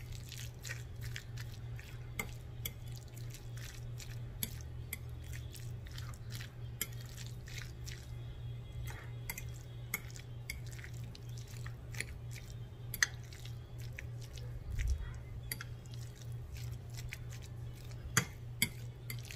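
Metal fork mixing dressed chicken salad in a glass bowl: irregular light clicks and scrapes of the fork against the glass, over a steady low hum.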